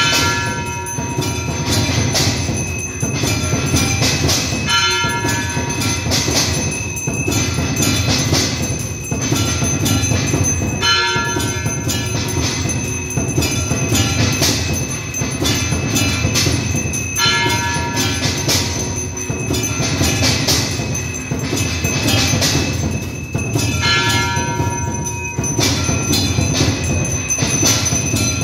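Brass hand bell (ghanta) rung continuously during an aarti, over loud, continuous clanging. A ringing chord recurs every couple of seconds.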